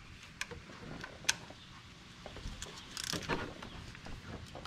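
Ratcheting wrench clicking as it turns an M6 bolt on the plastic timing belt cover: a few separate clicks, then a quicker run of clicks about three seconds in.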